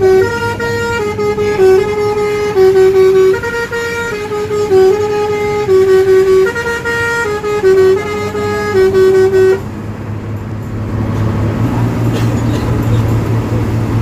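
Indonesian bus 'telolet' Basuri multi-tone horn playing a loud stepped tune of held notes. It cuts off suddenly near ten seconds in, leaving a steady low engine drone.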